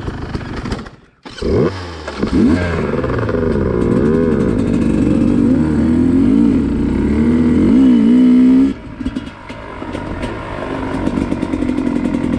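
Dirt bike engine revving on the trail, its pitch swinging up and down repeatedly as the throttle is worked, then dropping suddenly near the end to a lower, steadier running. The sound cuts out briefly about a second in.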